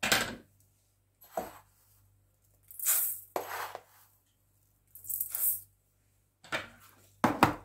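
Sesame seeds tipped off a metal tablespoon into a stainless steel bowl, two spoonfuls landing with a brief rattling hiss about 3 and 5 seconds in, between lighter clicks and scrapes of the spoon and the plastic tub and lid.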